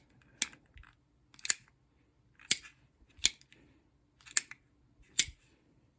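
Ryobi RHCKF01 folding utility knife clicking as it is worked open and shut with its awkwardly placed button. There are six sharp clicks, about a second apart.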